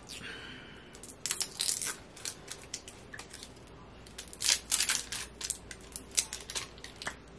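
Packaging crinkling and crackling in quick bursts as a mini lip pencil is unwrapped by hand. There is one cluster of crackles about a second in and a longer one from about four seconds to near the end.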